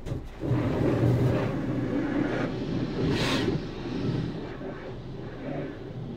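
Car-wash pressure-washer spray, hissing in several surges over a steady low rumble, heard from inside a car.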